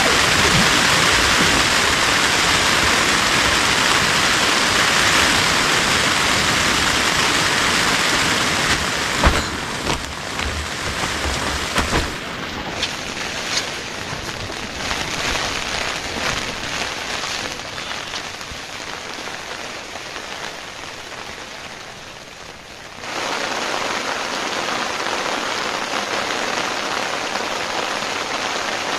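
Rain falling steadily, heavy at first, then lighter with separate drops tapping, then steady again. The level changes suddenly about a third of the way in and again near the end.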